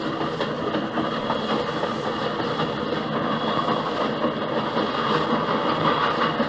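Steam train hauled by ex-Rahway Valley 2-8-0 No. 15, under way with a steady, continuous running noise and no distinct breaks. It is heard as a 1965 field recording played back from a vinyl record.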